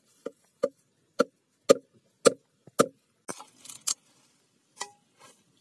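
Knife blade striking a bamboo tube to split it open: six sharp, hollow knocks about half a second apart, then a crackling split of the bamboo a little after three seconds in, and one more knock near the end.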